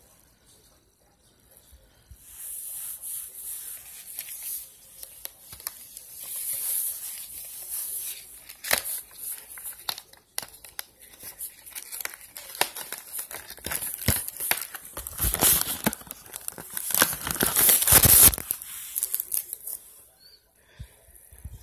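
Clear plastic wrapping on a makeup palette crinkling and rustling as it is handled, in irregular bursts with sharp crackles, loudest a few seconds before the end.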